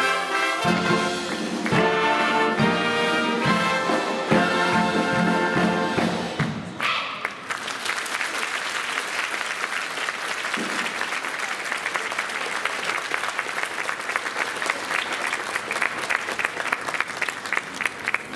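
A high-school wind band plays the closing chords of a piece, with brass and drums, cutting off about six and a half seconds in; the audience then applauds steadily for the rest.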